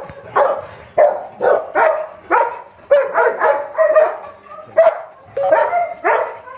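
Dog barking over and over, two or three sharp barks a second with short pauses between runs.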